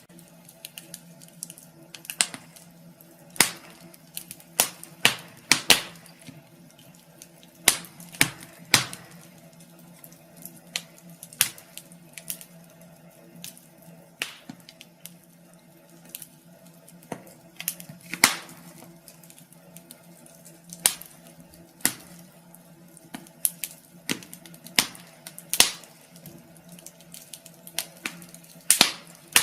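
Wood fire crackling in a fireplace: irregular sharp pops and snaps, some loud, over a faint steady low hum.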